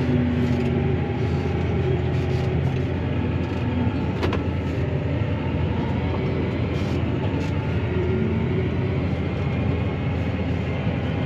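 Claas Arion 650 tractor's six-cylinder diesel engine running steadily under load while driving over a grass silage clamp to compact it, heard from inside the cab. A single sharp click sounds about four seconds in.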